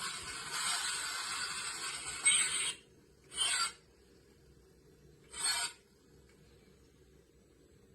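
Toy lightsaber's sound effect played through its small built-in speaker: a harsh hiss for the first couple of seconds, then two short whooshing bursts about two seconds apart, like swing effects.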